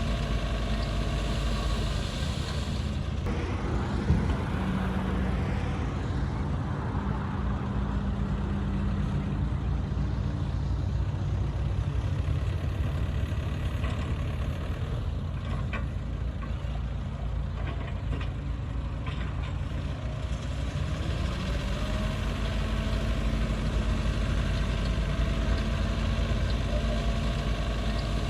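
Bulldozer's diesel engine running under load, its note shifting as it works, with one sharp knock about four seconds in.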